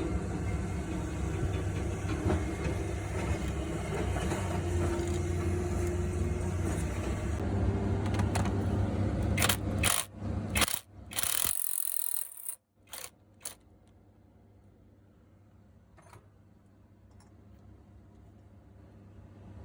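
Diesel truck engine, recently fitted with a replacement turbocharger, running steadily. It cuts off abruptly about ten seconds in after a few short breaks, and is followed by a quiet stretch with a few faint clicks.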